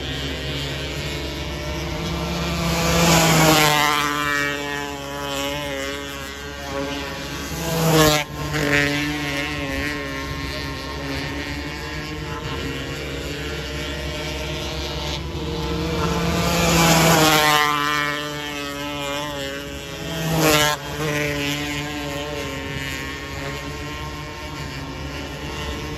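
270 micro sprint cars lapping a dirt oval, engines running hard throughout. Cars pass close four times, about 3, 8, 17 and 20 seconds in, each pass swelling loud then dropping in pitch as the car goes away.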